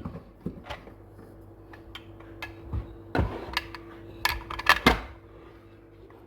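Metal parts and hand tools clicking and knocking on a workbench during work on a Husqvarna 266 chainsaw's piston, with a few louder knocks about three seconds in and again between four and five seconds, over a faint steady hum.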